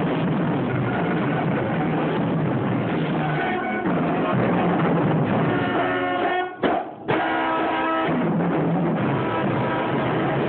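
Band playing, with a drum kit and held pitched notes, recorded loud and distorted. The sound briefly drops out about two thirds of the way through.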